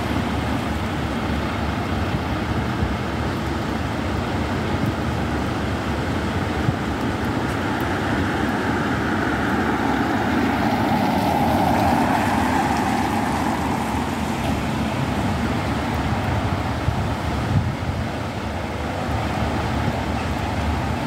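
Steady outdoor noise of road traffic with wind rumbling on the microphone in heavy rain, swelling a little near the middle.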